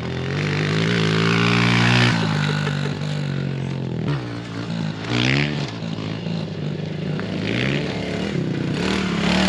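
Small petrol engine of a kid's off-road vehicle running and revving, its pitch climbing over the first two seconds, dropping, then climbing again about five seconds in.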